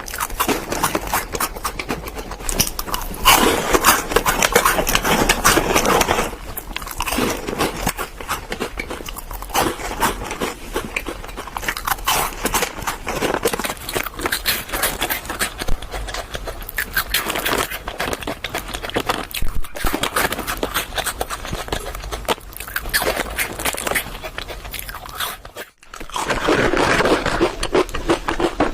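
Close-miked eating of sweets: continuous crunching and chewing with dense, crackly bites, broken by a brief pause near the end.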